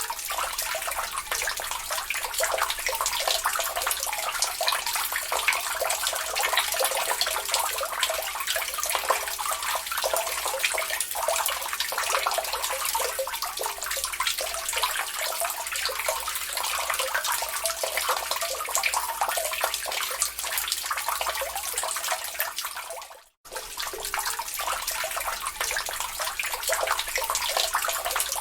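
Water dripping and trickling steadily into a lake, a dense run of small splashes. The sound cuts out for a split second about three-quarters of the way through.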